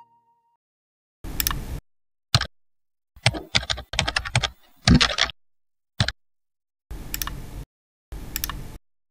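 Computer keyboard typing in several short bursts of clicks separated by pauses, with the longest, densest run in the middle.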